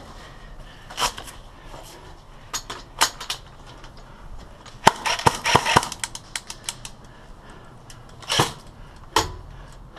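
Airsoft guns firing: scattered single sharp pops, then a quick run of rapid shots about five seconds in, then a few more single pops.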